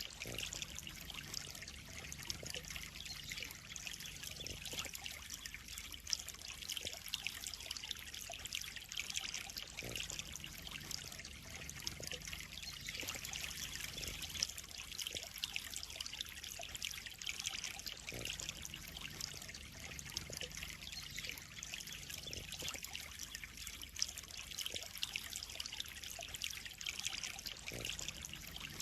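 Water trickling and splashing steadily into a koi pond, a continuous dense patter of small splashes.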